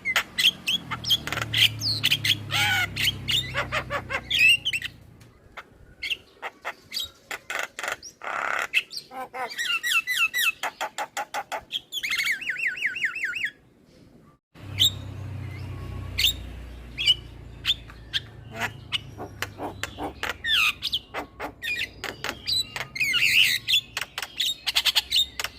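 Male Javan myna (jalak kebo) singing a varied, chattering song of rapid clicks, harsh squawks and gliding whistles. About halfway through there is a fast run of repeated notes, then the song briefly drops out before resuming. A low hum sits underneath in places.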